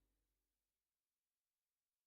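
Silence: the audio track is essentially empty.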